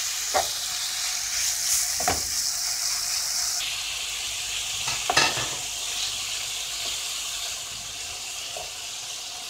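Raw diced chicken thigh sizzling as it starts to sauté in hot oil in a frying pan, stirred with a wooden spoon, with a few knocks and scrapes of the spoon against the pan.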